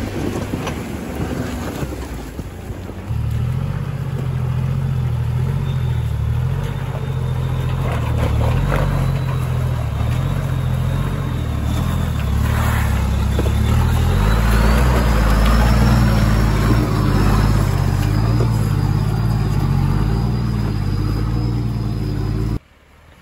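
Off-road 4x4's engine running at low revs while it crawls over rocks, with a thin high whine that rises in pitch about halfway through. The sound cuts off suddenly near the end.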